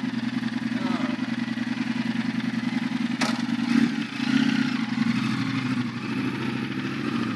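A vehicle engine running steadily at a low, even pitch, with a single sharp click about three seconds in.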